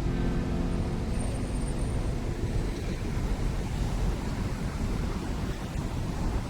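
Steady low rumble of city street traffic, mixed with wind on the microphone.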